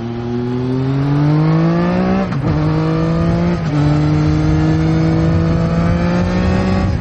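Sport motorcycle engine accelerating through the gears: the pitch climbs, drops sharply at two upshifts about two and a quarter and three and a half seconds in, then holds high and creeps up.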